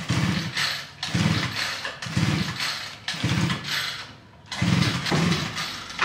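Motorbike engine being cranked over and over in short bursts about once a second, each about half a second of fast firing pulses, without settling into a steady run.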